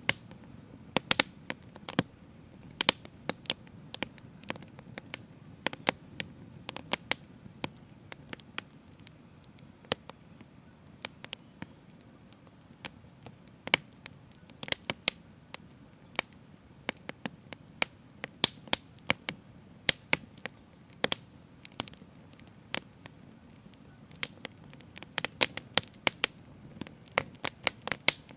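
Open fire crackling, with many irregular sharp pops of varying strength over a steady low rush.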